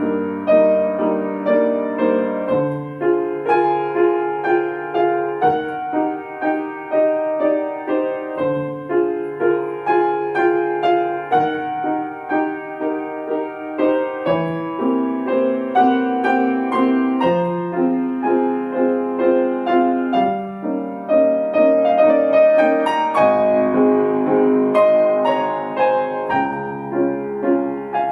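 Solo piano playing a classical piece: a repeating figure in the middle range over low bass notes that change every two to three seconds.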